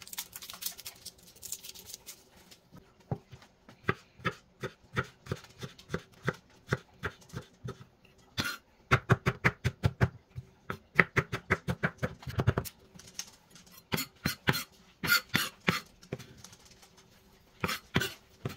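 Chef's knife chopping and mincing garlic cloves on a bamboo cutting board: a long series of sharp knocks of the blade on the wood, at about two or three a second, with quick runs of fast chops in the middle.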